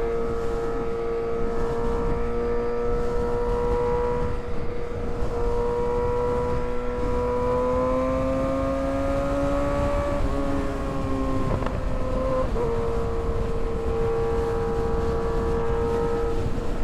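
Kawasaki ZX-6R 636 inline-four engine running at a steady cruise under way, over a constant rush of wind noise. Its pitch climbs gently for a few seconds past the middle, drops about twelve seconds in, then holds steady again.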